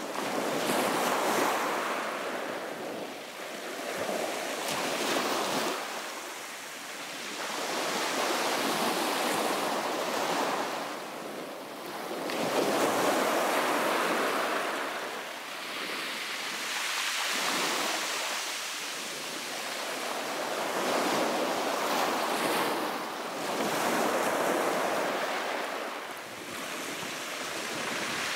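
Small waves breaking on a shingle beach and washing over the pebbles, the surf rising and falling every few seconds.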